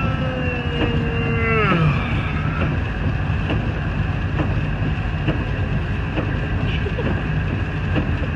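A long, drawn-out human yawn that slides slowly down in pitch and drops away about two seconds in, over the steady low rumble of a pickup truck's cab while driving. The rumble continues alone afterwards, with a few faint light ticks.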